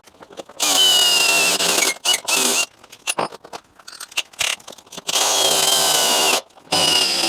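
Power drill boring a bolt hole through a metal mounting plate. It runs in four bursts of about a second each, its whine sagging slightly under load, with short pauses and small clicks between them.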